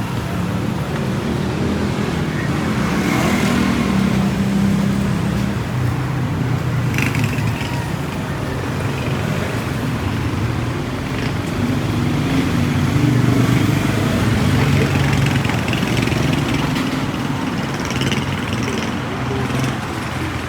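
Busy street traffic: motor vehicles running and passing close by, their engine hum swelling twice as vehicles go past.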